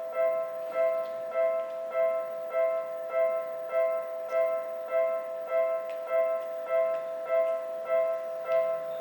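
Japanese railway level-crossing alarm ringing: a two-tone electronic ding struck over and over at an even pace, about five strikes every three seconds. It is the warning that a train is approaching and the crossing is closing.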